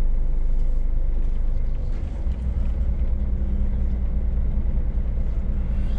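Scania S500's V8 diesel engine running at low speed as the truck creeps forward and turns, heard from inside the cab. Its low note shifts about two seconds in.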